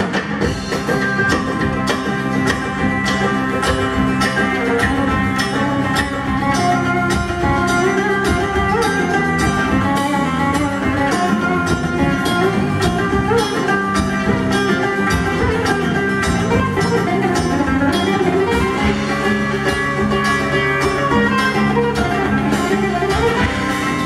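Live fusion rock band playing an instrumental passage: electric guitar and electric bass guitar over a steady beat of many quick percussion strikes.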